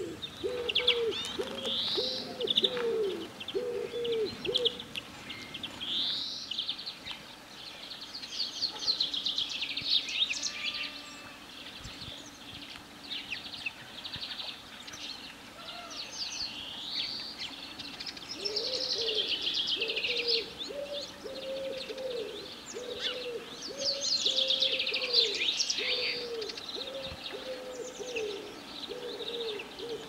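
Wild songbirds chirping and singing, with a low cooing call repeated over and over, a little under two notes a second, for the first few seconds and again through the last third.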